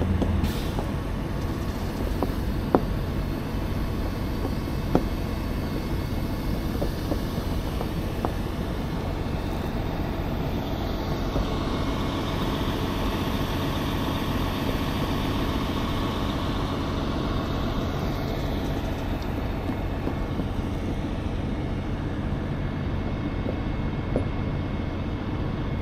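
Heavy diesel truck engines running steadily, with two sharp clicks in the first five seconds.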